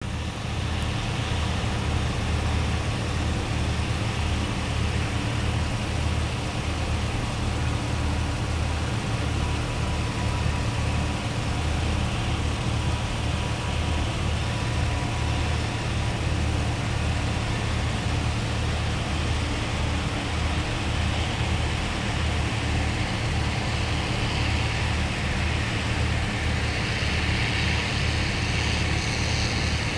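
Self-propelled forage harvester chopping corn: a steady low engine drone with a rushing hiss above it that swells near the end.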